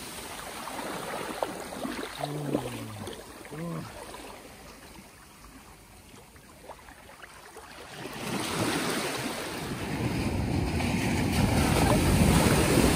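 Sea surf at night: after a quieter stretch, a wave breaks and washes in around people sitting in the shallows, starting about eight seconds in and loudest near the end.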